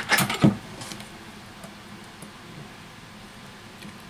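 A few sharp knocks and clicks in the first half second, from a Samsung Galaxy S8 and a metal pry tool being handled on a silicone repair mat. After that only a faint steady room hum remains while the tool works under the glued battery.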